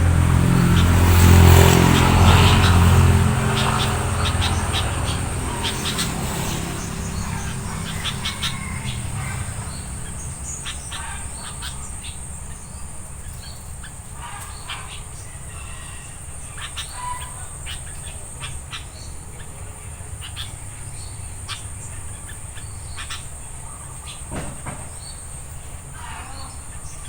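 Short, sharp chirps of sooty-headed bulbuls scattered throughout, over a steady high-pitched insect drone. A motor vehicle's engine is loud at first and fades away over the first several seconds.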